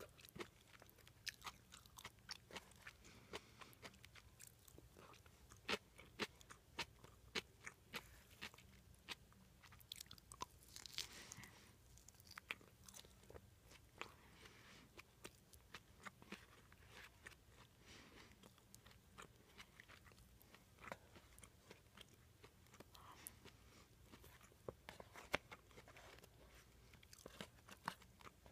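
Close-miked chewing and mouth sounds of someone eating a bento: irregular sharp clicks and smacks, several a second, with a longer crunch about eleven seconds in.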